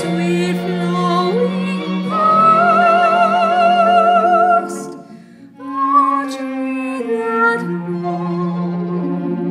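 A woman singing a slow setting of a poem over a steady low accompaniment. She holds a long note with vibrato, pauses briefly about five seconds in, then starts the next line.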